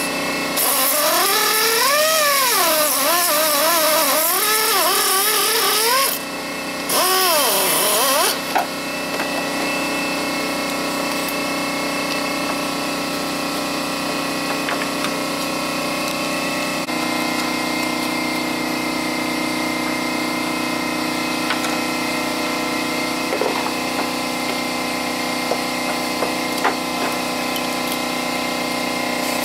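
A handheld power tool runs in two bursts over the first eight seconds or so, its whine rising and falling in pitch over a hissing scrape. After that comes a steady hum with a few light clicks.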